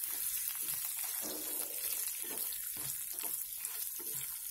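Spices, dal and freshly added curry leaves sizzling in a little hot oil in a kadhai, with a wooden spatula scraping and stirring them around the pan in irregular strokes.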